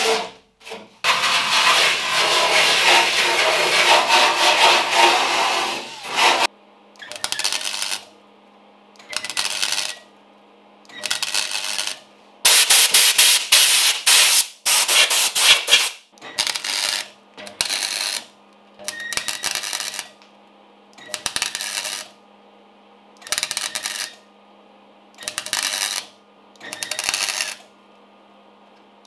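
A small disc grinder grinds steel for about six seconds and stops. Then a MIG welder stitch-welds a butt joint in thin steel body panel: about a dozen crackling bursts, each about a second long and roughly two seconds apart, with one longer run in the middle and a steady low hum in the gaps.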